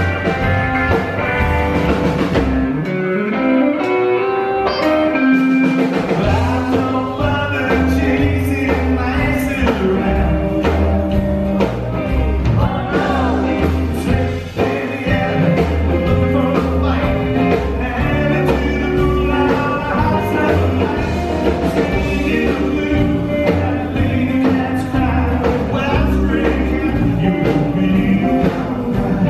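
Live rockabilly band playing an instrumental stretch: electric guitar over upright bass and drums. A few seconds in, the bass and drums drop out under a climbing guitar run, then the full band comes back in with a steady swing groove.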